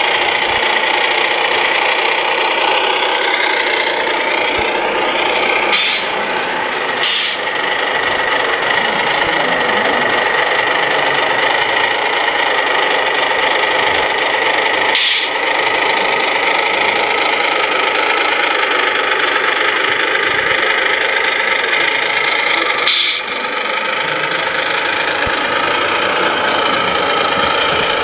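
Radio-controlled scale MAN TGA heavy-haulage truck running. It gives a steady, engine-like mechanical drone with held whining tones that dips briefly a few times.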